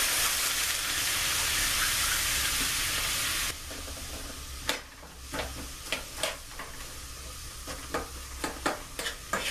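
Water sizzling hard on frozen corn kernels in a hot non-stick frying pan, then dropping suddenly to a quieter sizzle about three and a half seconds in. Over the quieter sizzle a utensil stirs the corn with a series of sharp clicks and scrapes against the pan.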